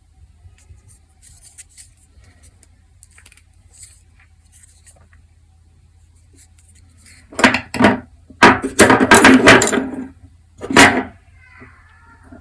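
Folding pocket knives with G10 handles being handled: a few faint clicks, then, about seven seconds in, three loud spells of rubbing and clattering, the longest lasting about a second and a half.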